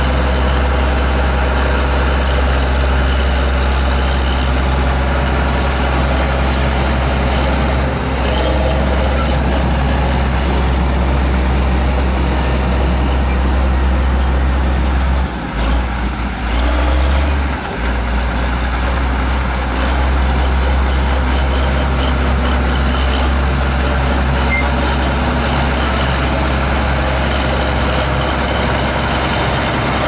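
Heavy diesel engine of road-building machinery running steadily, with a brief drop in its low engine note a little past halfway.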